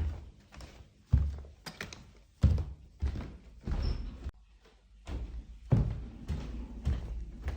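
Footsteps: a series of thudding steps at a walking pace, roughly one to two a second, with a short pause of under a second a little past halfway.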